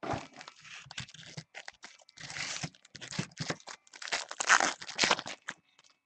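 Foil wrappers of trading card packs crinkling and tearing as they are handled and opened, in irregular bursts, loudest about four and a half seconds in.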